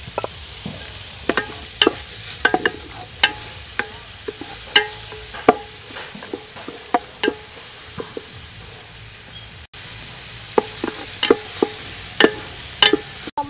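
Chopped shallots and garlic sizzling in hot oil in a metal pot, stirred with a wooden spoon that knocks against the pot in irregular clacks, some with a short metallic ring.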